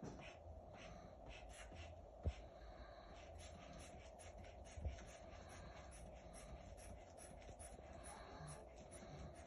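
Faint scratchy rustling and short puffs, a few per second, from handling a manual blood-pressure cuff, its inflation bulb and a stethoscope during a reading. Two sharp knocks come about two and five seconds in, over a faint steady hum.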